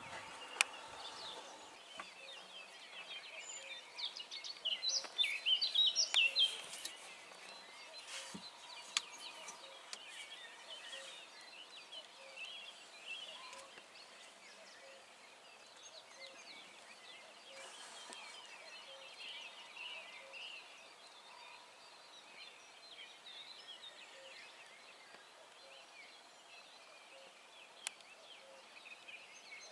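Several songbirds singing, with the song loudest for a few seconds about five seconds in. A sharp click near the start and another near the end.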